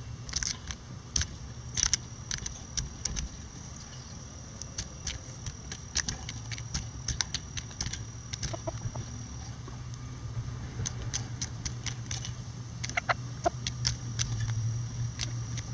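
Bantam chickens pecking at a hanging vegetable treat: a quick, irregular run of sharp beak taps, over a steady low hum that grows louder near the end.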